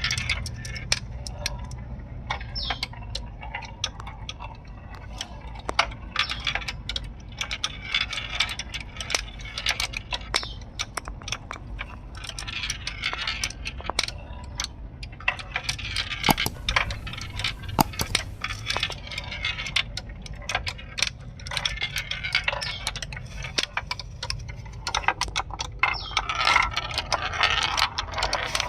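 Marbles rolling down a marble run, with many irregular clicks as they knock against the track and each other, and stretches of rolling rattle that swell and fade several times.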